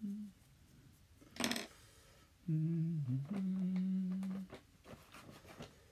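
A man humming to himself in a low voice, two held notes from about two and a half seconds in, the second one longer. A short hissing rush comes about a second and a half in.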